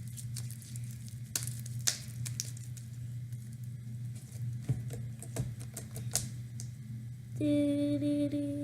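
Sticky homemade slime being stirred and pulled with a wooden craft stick: irregular sticky clicks, pops and taps. Near the end a steady held note starts, with a single unchanging pitch.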